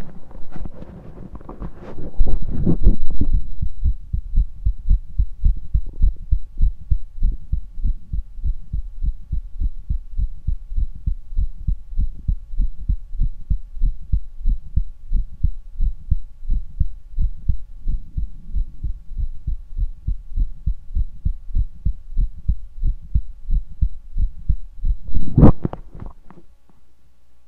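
Human heartbeat heard through a stethoscope: a steady run of low, regular thumps. A loud rustling noise covers the first few seconds, and a loud thump comes near the end.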